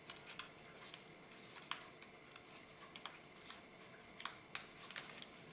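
Faint, irregular small clicks and taps as a laptop Wi-Fi antenna cable's snap-on connector is worked onto the wireless card, the sharpest click about a second and a half in; a little click means the connector has seated.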